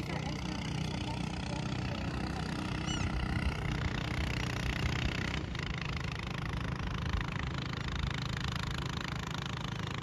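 Steady low outdoor rumble with a hiss over it, even throughout, with a couple of faint high chirps about three seconds in.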